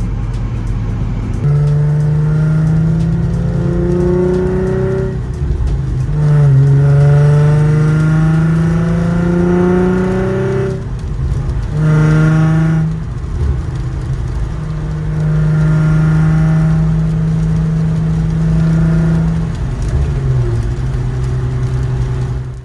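Infiniti G35's VQ35DE V6 engine accelerating through the gears: the engine note climbs steadily in pitch, drops back at each upshift, and climbs again, three pulls in a row, then holds a steady pitch and eases off near the end.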